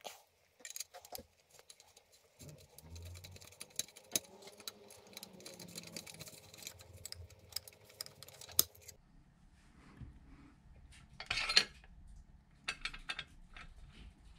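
Metal hand tools and engine parts clinking and knocking during work on an outboard motor, in scattered irregular clicks, with a short, louder rasping noise about eleven seconds in.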